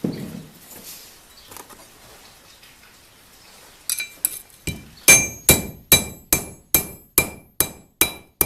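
Hammer blows on a bent steel knife blade laid on a steel block used as an anvil, straightening it. After a dull knock and a few quiet seconds comes a run of about a dozen sharp, ringing metal-on-metal strikes, about two and a half a second.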